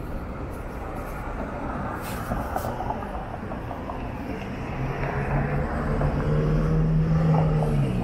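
City street traffic: cars passing with tyre and engine noise. From about halfway, a large vehicle's steady hum grows louder as it approaches, dropping a little in pitch near the end.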